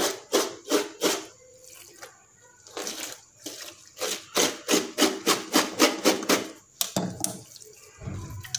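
Knife blade scraped again and again over wet goat tripe (ojri) on a steel tray, stripping off its inner lining, in wet strokes about three a second with a pause around two seconds in. Near the end the scraping stops and the tripe is gathered up with a low bump.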